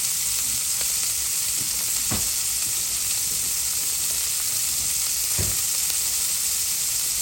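Filet mignon steaks searing in a hot pan: a steady sizzle of frying meat.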